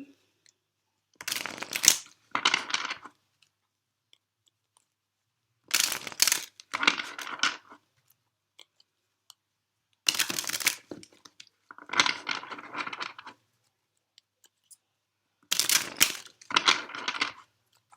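A deck of tarot cards being shuffled: short rustling runs of about a second each, in four pairs, with pauses between them.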